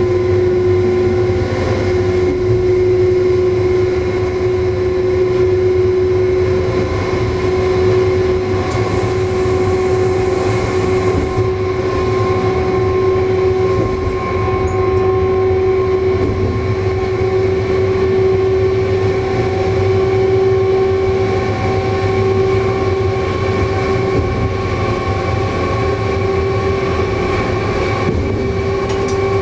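Electric passenger train running at a steady speed, heard from the driver's cab: continuous rumbling running noise with a steady whine from the traction drive that creeps slightly higher in pitch. A brief high hiss about nine seconds in.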